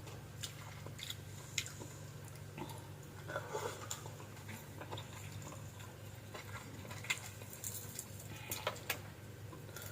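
Person eating close to the microphone: quiet chewing with scattered mouth clicks and smacks, over a steady low hum.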